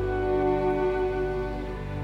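Background music of slow, long-held bowed string notes.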